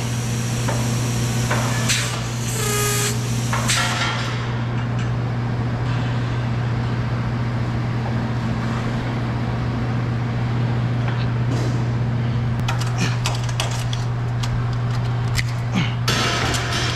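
Metal clanks, knocks and rattles from hands-on work at a tanker trailer's fittings, over a steady low machine hum. The knocks come a few at a time early on and then thickly in the last few seconds.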